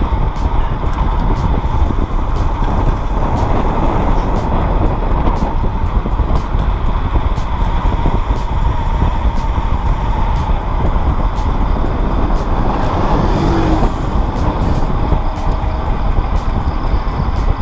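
Wind buffeting a helmet-mounted action camera's microphone while riding at speed, a steady low rumble with road noise under it.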